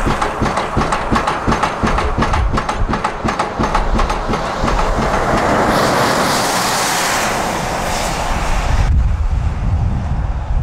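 Hitachi 180 excavator working, with a rapid, even run of clicks, several a second, over a low engine rumble for the first half. A brief hiss comes in the middle, then a heavier low rumble.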